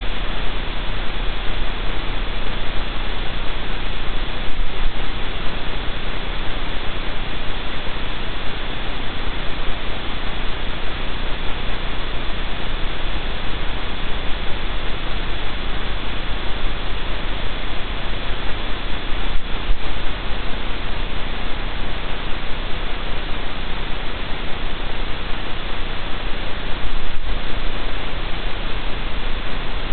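Steady, loud electronic hiss of static with a low mains hum and a faint high whine, from the den camera's audio feed.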